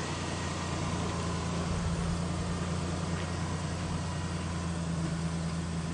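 Ford Explorer's engine idling steadily, a low even hum.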